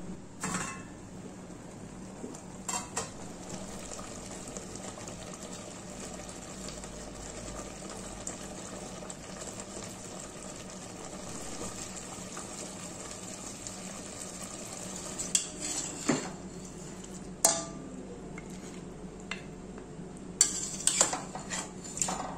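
Steady low sizzle of a chicken curry cooking in a stainless steel pot, broken by sharp metal clinks of the steel lid and a ladle against the pot: a few near the start and a busier run of clinks and scrapes in the last seven seconds as the curry is stirred and scooped.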